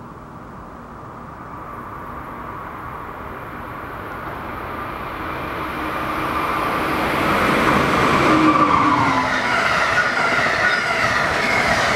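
Amtrak passenger train hauled by a Siemens ACS-64 electric locomotive approaching at about 80–85 mph and passing close by. Its rumble and rail hiss grow steadily louder, the pitch drops as the locomotive goes past about eight seconds in, and then the coaches rush by with loud, steady wheel-on-rail noise.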